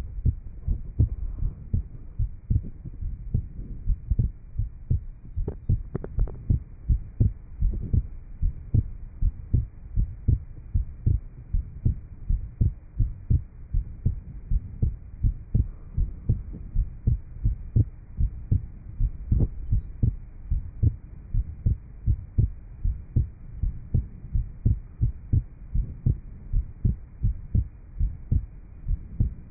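Heartbeat picked up by a chest microphone at the lower left sternal border of a patient after surgical repair of an atrial septal defect: regular low thuds, beat after beat, with a couple of sharper clicks about six seconds in.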